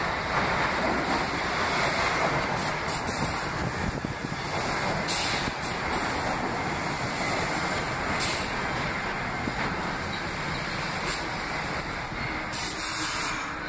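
New York City Subway R62-family train pulling into an underground station and slowing as its cars roll past, a steady rumble of wheels on rail. Several brief hissing bursts sound as it brakes.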